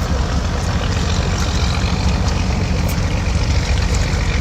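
An engine running steadily at a low idle, giving a deep, even drone.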